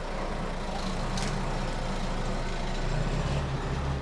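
A heavy truck's engine running steadily, with a short hiss about a second in. The engine note grows stronger around three seconds in.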